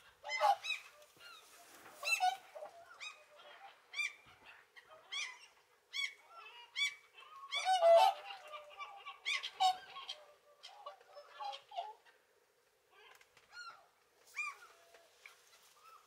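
Whooper swans calling in a flock, many short bugling honks overlapping at irregular intervals, with gulls' higher cries among them; the busiest, loudest burst of calling comes about halfway through.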